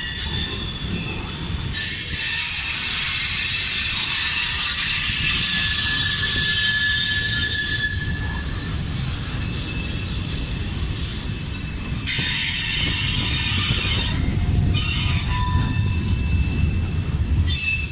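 Freight cars of a CSX manifest train rolling past, wheels squealing in high, steady tones over a low rumble. The squeal fades about halfway through and comes back loudly a few seconds later.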